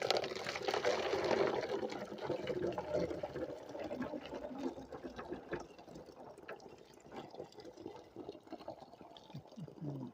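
Water being poured into a container, strongest over the first couple of seconds and then tapering off to a thinner trickle.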